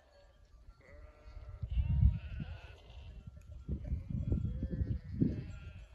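Sheep in a grazing flock bleating a few times, ewes calling to lambs, over a low rumble that is loudest about two seconds in.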